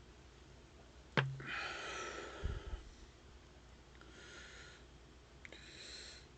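Soft breaths or sniffs, three of them, with a sharp click about a second in and a few soft low knocks around two and a half seconds.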